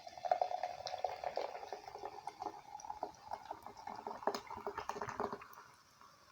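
Wet eating sounds of a person slurping and chewing saucy food, with many small wet clicks; they stop about five and a half seconds in.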